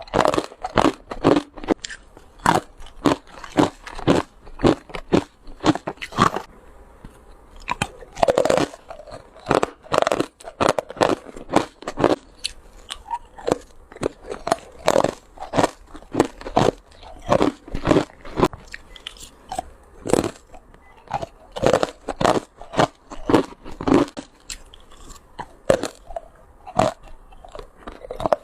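Ice being bitten and crunched by a person, close to the microphone: a steady run of sharp, irregular crunches, two or three a second.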